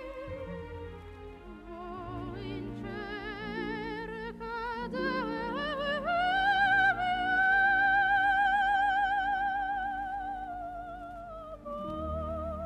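Classical music: a wavering, vibrato melody line over sustained low chords, climbing to a long held high note about six seconds in that holds for some four seconds before easing down.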